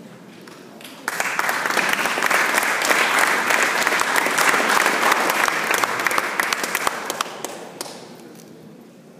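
Audience applauding. The clapping starts suddenly about a second in, holds strongly for about six seconds, then dies away.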